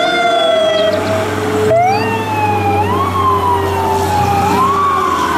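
Fire engine's siren wailing, its pitch rising and falling in slow sweeps every few seconds, over a steady low engine rumble.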